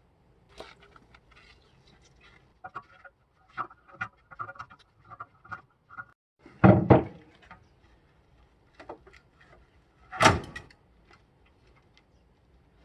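Hands working on the TV cabinet's parts and tools: scattered light clicks and clinks, with two loud knocks of something set down or dropped, one about halfway and one about three seconds later.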